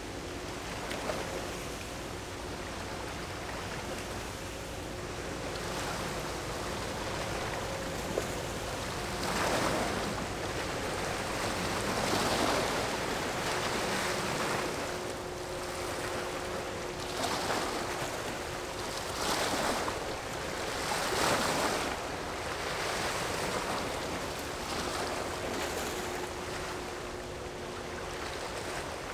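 Small waves washing against the riverbank, rising in a series of swells about two seconds apart through the middle, over a steady rush of water and wind. A faint steady two-tone hum comes and goes underneath.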